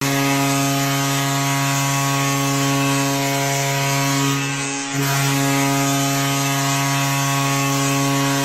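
Hockey arena goal horn blowing a long, steady, low blast, briefly broken about five seconds in before it sounds again.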